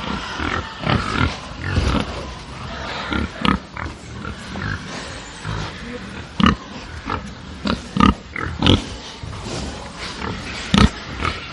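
A pen of agitated pigs grunting and squealing, with many short, sharp calls over a constant din from the herd. The loudest squeals come about two-thirds of the way through and again near the end.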